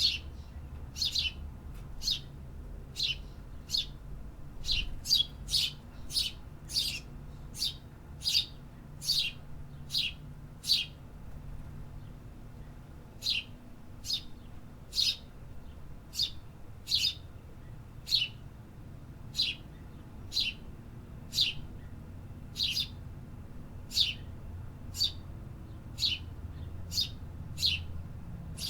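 A bird giving the same short, sharp chirp over and over, about one or two a second, with a pause of a couple of seconds partway through. A low steady rumble runs underneath.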